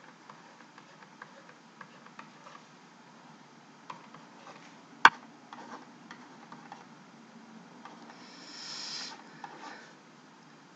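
Faint taps and light scratches of a stylus handwriting on a digital pen surface, with one sharper click about five seconds in and a soft rustling swell a little after eight seconds.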